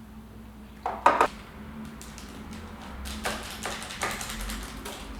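A kitchen utensil knocking twice against a bowl about a second in, then lighter scraping and tapping as a cream cheese mixture is scooped into a dish.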